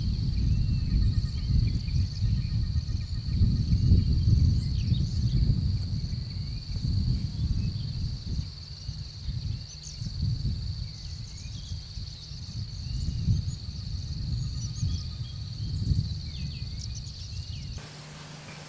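Outdoor insect drone, one steady high buzz, with many short bird chirps over it and a strong, uneven low rumble underneath. Near the end it cuts abruptly to a quieter, steady low hum.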